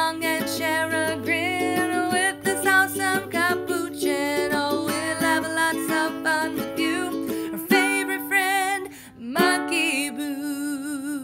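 Background music: a light instrumental tune with held notes, many of them wavering, which thins to a last held note near the end.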